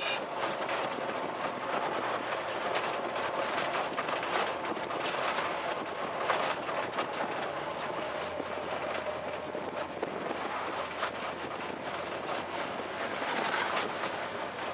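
Motorised tuk-tuk on the move: its open metal-railed rear body clattering and rattling steadily over the running engine and rushing air. A truck passing alongside adds a brief swell of noise near the end.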